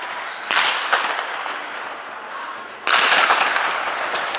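Fireworks going off: a bang about half a second in and a louder one about three seconds in, each trailing off slowly, with a short sharp crack at the very end.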